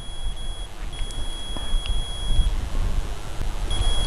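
Low rumbling background noise with a thin, high-pitched electronic whine that cuts in and out several times.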